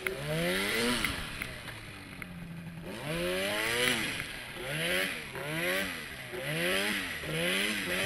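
Arctic Cat Turbo snowmobile engine running through deep powder. After a short stretch of steadier running, the throttle is worked up and down about once a second, each rev a rising whine that drops away. A rushing hiss swells with each burst.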